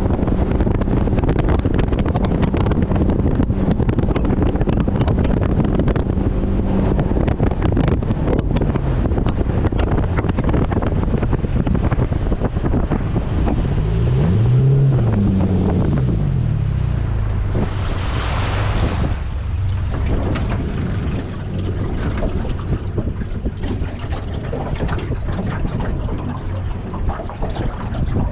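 Mercury 80 Jet outboard powering a jet boat, running steadily under heavy wind buffeting on the microphone. About halfway through the engine pitch rises and falls with the throttle, and a brief rushing hiss follows a few seconds later.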